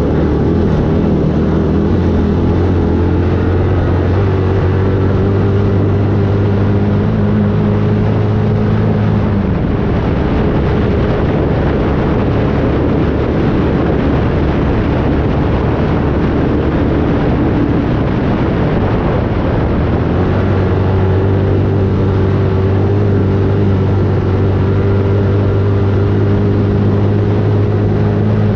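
A motor engine running at a steady speed over a loud, even rushing noise; the engine's steady hum fades out for about ten seconds in the middle and then comes back.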